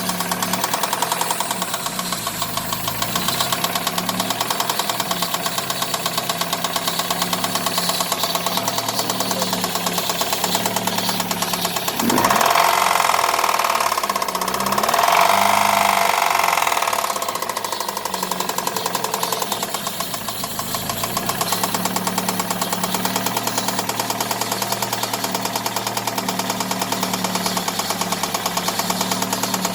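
Daewoo Nexia 16-valve engine running with a rapid, even metallic knock. It is revved sharply about twelve seconds in and held up for a few seconds, then drops back to idle with the knock still there. The knock is present both cold and hot; the owner suspects a spun bearing shell or a crankshaft, camshaft or cylinder-head fault.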